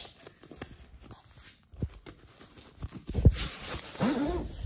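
Nylon shell of a down-filled parka rustling as hands handle the jacket and its zipper, with a few soft knocks; the loudest knock comes a little after three seconds in, followed by louder rustling.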